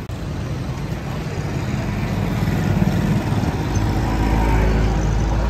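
Street traffic with a motor vehicle engine running close by. The low rumble grows louder over the first couple of seconds and then holds.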